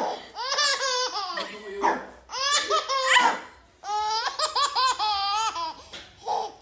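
A baby laughing, high-pitched, in about three long bouts with short pauses between them.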